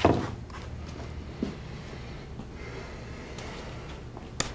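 Soft rubbing as a gloved hand wipes varnish over wooden slats, with a small click about a second and a half in and a sharper click near the end.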